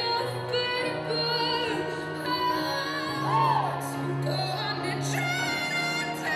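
A slow pop ballad playing, with a woman singing long held notes that waver in pitch over a sustained low accompaniment.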